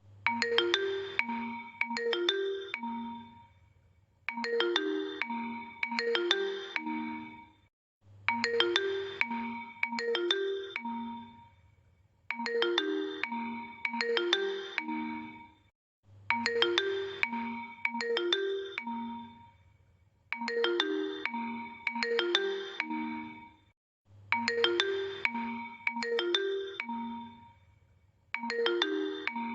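Vivo smartphone message notification tone playing on a loop: a short melodic phrase of quick notes, sounded twice in a row, then repeating about every four seconds, about seven times.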